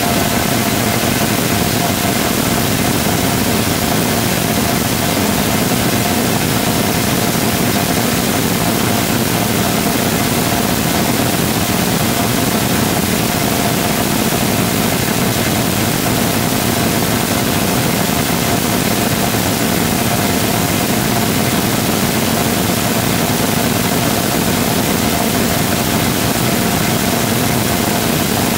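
Full-scale 3D-printed Rotating Detonation Rocket Engine combustor firing on a test stand: a loud, steady, unchanging rush of noise with a faint steady tone running through it.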